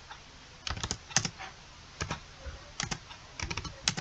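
Computer keyboard typing in short bursts of a few keystrokes, with pauses between the bursts.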